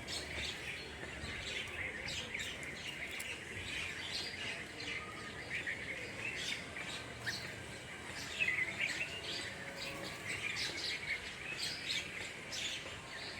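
Several birds chirping and calling over one another in a steady stream of short, high chirps.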